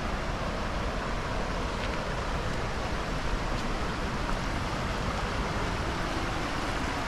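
Steady rush of a fast-flowing river running over rocks and small rapids.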